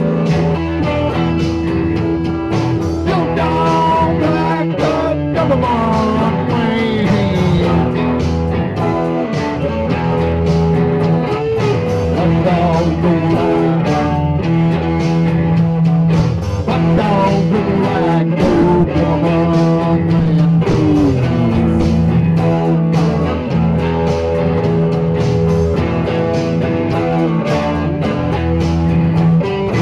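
Blues-rock band music: a guitar plays lead lines that bend and slide in pitch over a steady backing.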